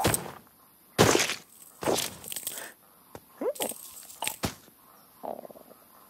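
Slapstick cartoon sound effects: three bursts of rushing noise in the first three seconds, then two short squeaky pitch glides and a brief quick patter near the end.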